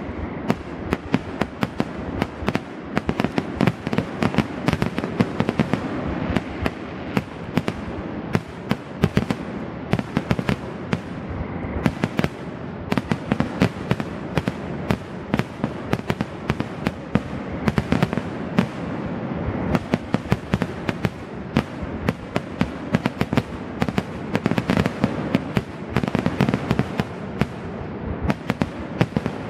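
Aerial fireworks shells bursting in a rapid, unbroken barrage of sharp bangs, several a second, over a continuous rumble: the grand finale of a fireworks display.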